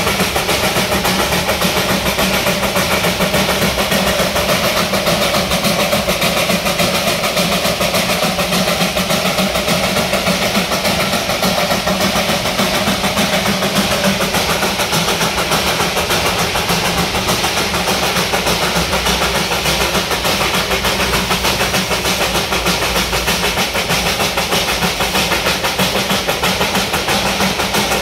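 Darjeeling Himalayan Railway B-class saddle-tank steam locomotive chuffing steadily as it works along the track, its exhaust beats coming in a rapid, even rhythm.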